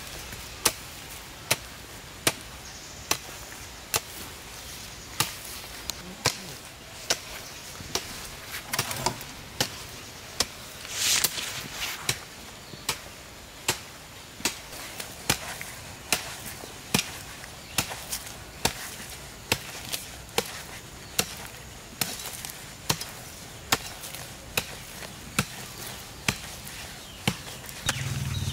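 Steady, rhythmic chopping with a hand tool: a sharp strike a little faster than once a second, kept up without a break.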